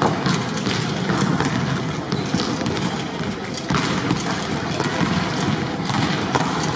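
Volleyballs being struck and bouncing on a hardwood gym floor at irregular moments, over the steady din of a crowded sports hall.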